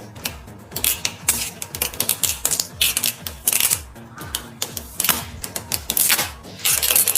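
Quick irregular clicks and taps of computer parts being handled and fitted together, over background music with a steady deep beat.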